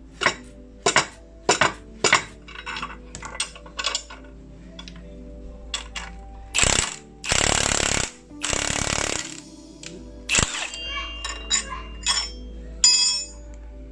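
Metal tools clinking and knocking against metal parts in repeated sharp strikes, with three short hissing bursts about halfway through.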